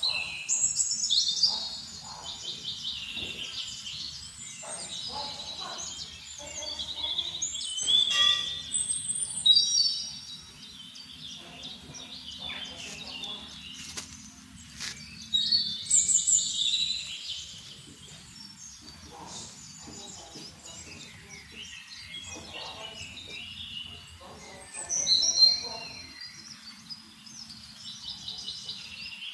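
Small birds chirping and twittering in repeated bursts, with loud spells about a second in, around eight to ten seconds, around sixteen seconds and near the end, over a faint steady background noise.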